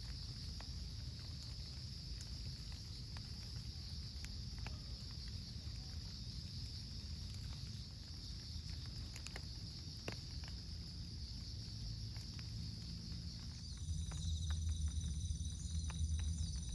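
Insects chirring steadily in a high, even band over a low rumble, with a few faint clicks. About fourteen seconds in, the chorus changes to several higher, pulsing tones and the rumble grows louder.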